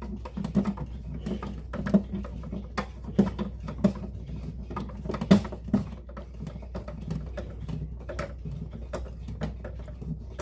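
A screwdriver driving a screw into the clock case until it is tight: irregular small clicks, scrapes and light knocks, with one sharper knock about halfway through.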